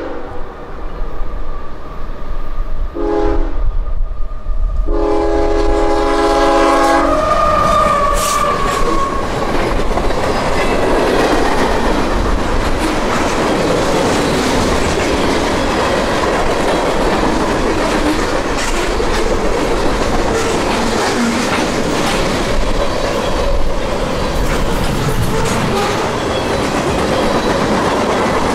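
CSX freight train's air horn finishing its grade-crossing signal: a long blast, a short one, then a final long blast held as the locomotives reach the crossing. The train then passes close by, wheels clattering over the rail joints, with a brief wheel squeal just after the horn stops.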